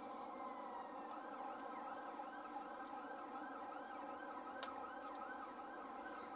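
A faint siren-like warbling tone, rising and falling about three times a second over a steady hum of several tones, with one sharp click near the end.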